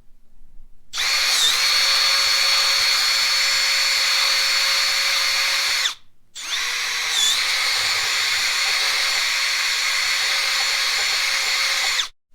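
Power drill running twice, about five seconds each time, a steady high whine that dips briefly in pitch soon after each start: drilling out holes for U-bolts to mount a monitor bracket on a bar.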